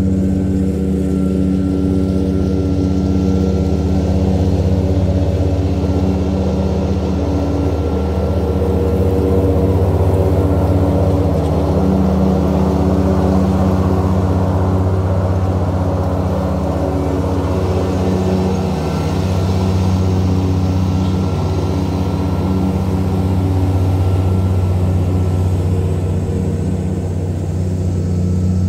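Ride-on mower's engine running steadily while mowing, a low even hum with a slight swell as the mower comes nearer.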